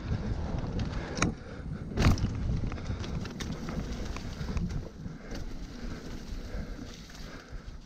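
Mountain bike riding fast down a dirt trail covered in dry leaves: steady tyre rumble and wind on the microphone, with sharp knocks and rattles from the bike over bumps. The two loudest come about one and two seconds in.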